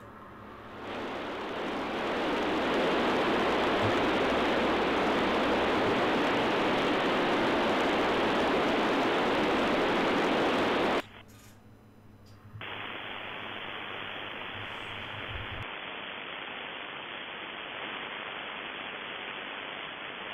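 Flex software-defined radio receiver putting out a steady hiss of static: loud open-channel noise while tuned on the 2 m FM band, cutting off abruptly a little past halfway. After a short lull it is followed by quieter, steady band noise once the radio is on 20 m.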